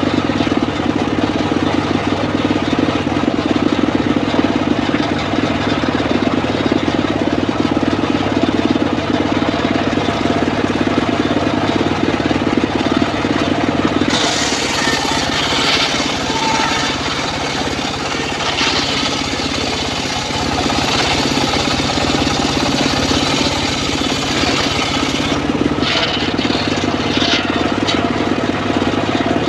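Engine driving a homemade circular saw bench, running steadily. About halfway in, the spinning blade cuts through a teak log for roughly eleven seconds, adding a high hissing cutting noise that stops near the end, leaving only the engine.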